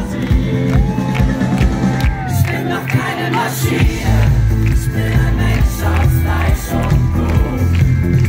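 Live pop band playing an instrumental passage, with drums, bass and electric guitar through a big PA; the bass and kick drop away for about a second in the middle, then the full band comes back in. Crowd cheering can be heard under the music.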